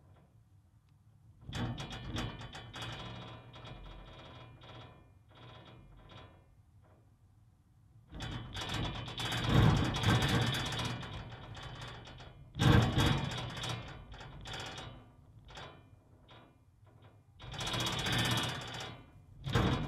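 Loose cast-iron manhole cover rattling and clanking in its frame in irregular bouts. The loudest clatter comes about eight to eleven seconds in, with a sharp clank near thirteen seconds and another bout near the end.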